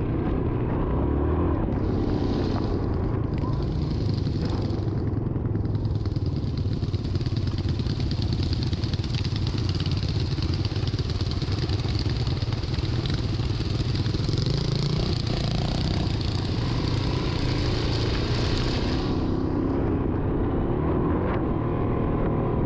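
Yamaha XT350's single-cylinder four-stroke engine running steadily as the trail bike is ridden along a dirt track. A high hiss sits over it for most of the stretch and fades out a few seconds before the end.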